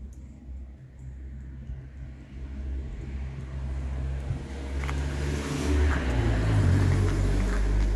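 A motor vehicle's engine rumbling low and getting steadily louder, loudest in the last couple of seconds, as it draws close.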